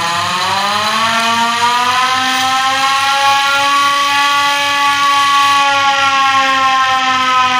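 Hand-cranked railway emergency siren, an accident alarm, being wound up: its wail rises in pitch over the first couple of seconds, then holds steady while the crank keeps turning, with a low pulsing underneath.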